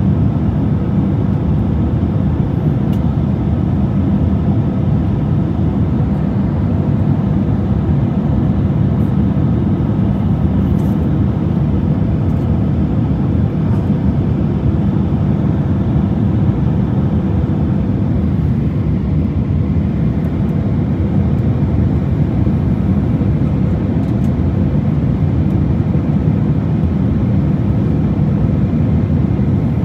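Steady low rumble inside the cabin of an Airbus A350 in flight. It is the drone of its Rolls-Royce Trent XWB jet engines mixed with the rush of air along the fuselage.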